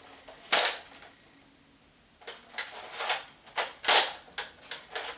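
Hard plastic clicks and clacks from a Nerf blaster's mechanism being worked by hand. There is one click about half a second in, then from about two seconds on a quick, uneven run of about ten more as the lock lever and parts are tried.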